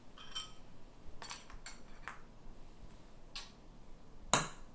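An eating utensil clinking lightly against a ceramic bowl several times, then one louder knock near the end.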